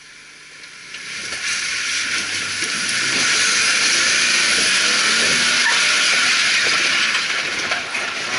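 Off-road vehicle's tires spinning and scrubbing on rock as the engine is gunned: a loud hiss that builds over the first few seconds and then holds, with the engine running low underneath. It is wheelspin, the tires burning rubber on the rock as the vehicle tries to climb over it.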